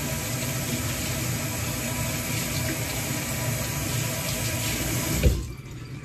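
Kitchen tap running into the sink, a steady rush of water as vegetables are rinsed under it; about five seconds in the flow stops abruptly with a thump as it is turned off.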